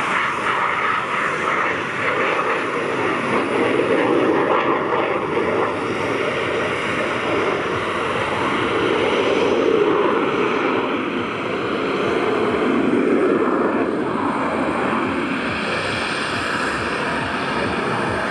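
Military jet's engine noise as it flies a display overhead. The sound is a continuous noise that swells and fades, loudest about four, ten and thirteen seconds in.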